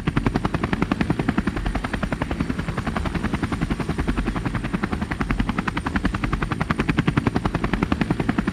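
A loud, fast rhythmic chopping pulse, about ten beats a second, over a steady low drone.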